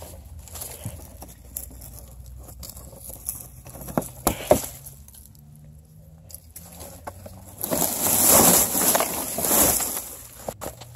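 Dry twigs and brush rustling and scraping as someone pushes through dense shrubbery, loudest in a spell of about two and a half seconds near the end. Before it, scattered small clicks and twig cracks.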